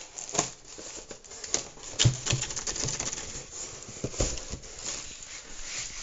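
Packing foam and cardboard being handled and pulled from a shipping box: irregular rustling, scraping and knocks, the loudest knock about two seconds in.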